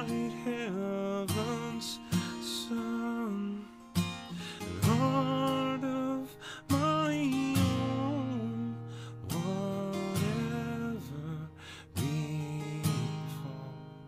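Taylor 516ce Tasmanian blackwood acoustic guitar strummed in slow chords, with a man's voice singing long held notes of a hymn melody over it; the sound fades away near the end.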